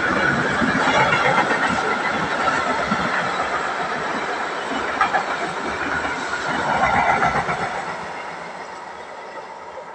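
Freight train of tank wagons passing close by: a steady rush of wheels on rail with a few sharp clicks, getting quieter over the last few seconds.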